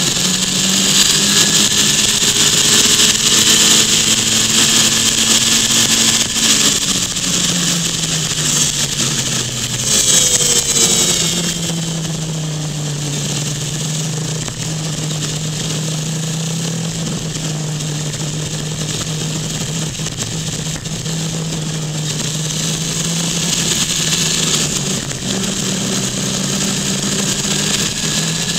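A vehicle's engine running under way, with wind and road noise on a camera mounted on the outside of the vehicle. The engine note holds steady, drops lower about six seconds in, and rises again near the end.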